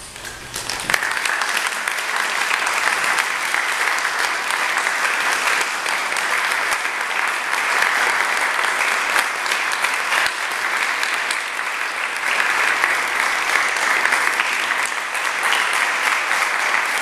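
Audience applauding after a choral performance, a dense steady clapping that swells up within the first second and carries on without letting up.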